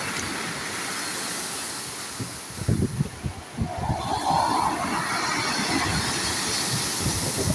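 Sea waves breaking and washing in, with wind buffeting the microphone in low, gusty rumbles. The wash swells about four seconds in.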